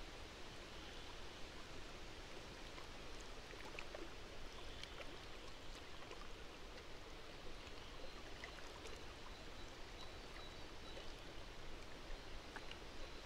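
Faint outdoor ambience: a soft, even hiss, with a few faint high chirps and small ticks scattered through it.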